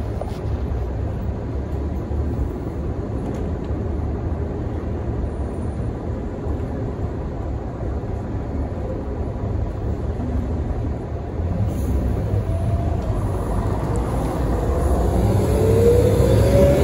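Mercedes-Benz O405 city bus heard from on board, its diesel engine and running gear giving a steady low rumble. In the last few seconds the engine note rises and grows louder as the bus accelerates.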